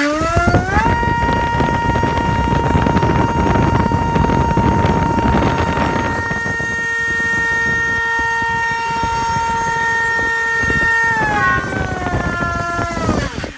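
FPV Model MC2204 2300 kV brushless motor on a thrust-test stand, spinning a 5x3 propeller at full throttle on a 4S battery. Its whine rises as it spools up, holds a steady high pitch over the rush of prop wash for about ten seconds, then steps down and winds down to a stop near the end.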